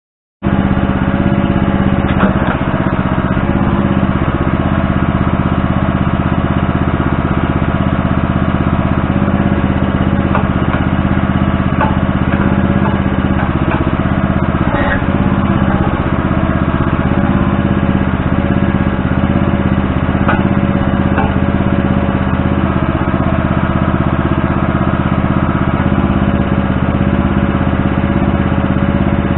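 Backhoe engine running at a steady speed, with a few faint knocks over it.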